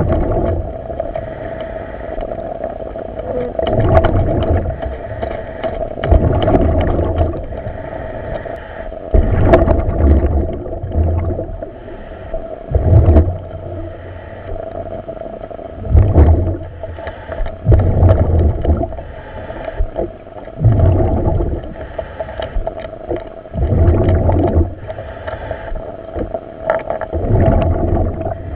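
Diver breathing underwater through a commercial diving helmet, heard over the dive radio: a noisy rush of breath and bubbles about every three seconds over a steady hum.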